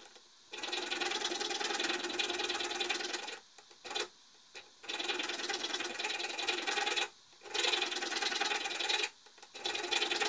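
Steel thread restoring file rasping back and forth over a rusty steel stud's damaged threads, recutting them. The filing comes in four long spells with short pauses between, plus one brief scrape in the first pause.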